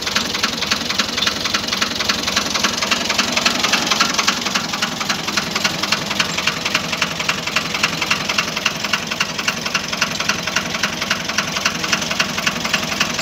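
Ford 4600 tractor's three-cylinder diesel engine idling steadily, with an even, rapid pulse from its firing strokes.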